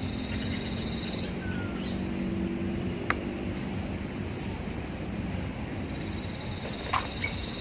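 Outdoor riverside ambience: a high buzzing trill of a bird or insect at the start and again near the end, short chirps, and a steady low hum underneath, with two sharp clicks about three and seven seconds in.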